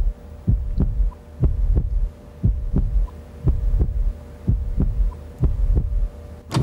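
Quiz-show countdown sound effect for the ten-second answer clock: a heartbeat-like double thump about once a second over a faint steady hum.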